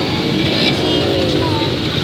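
Steady vehicle noise: an engine running close by, with a continuous rush of road or wind noise.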